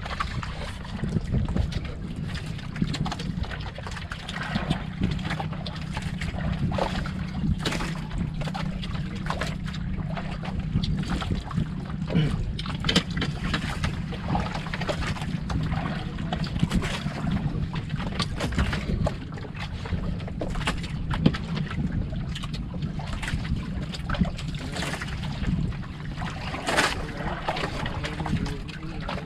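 Wind and water sounds on an outrigger boat at sea: a steady low drone under wind on the microphone and water moving against the hull, with scattered light knocks.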